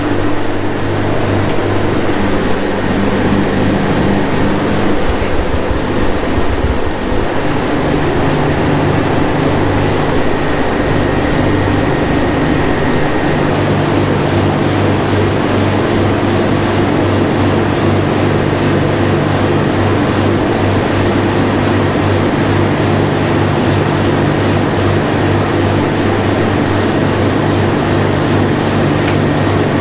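A vehicle engine running steadily at low revs, with a hiss over it; its note shifts a little about seven seconds in.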